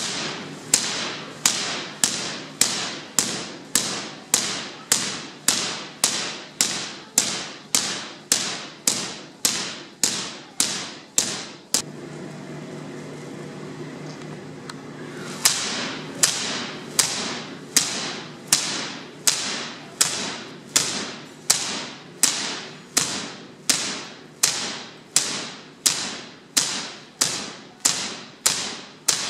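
High-voltage sparks from a giant Van de Graaff generator, cracking in a steady rhythm of about one and a half a second over a low electrical hum. The sparks stop for about three seconds midway, leaving only the hum, then start again.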